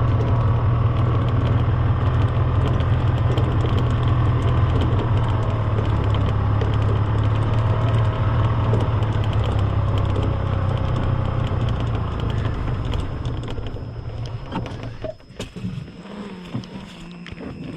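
An engine running steadily with a strong low drone, dying away in the last few seconds.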